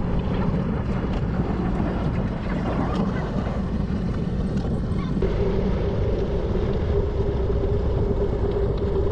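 Wind rushing over the microphone of a moving bicycle, over steady rolling road noise. The low hum shifts up in pitch about five seconds in.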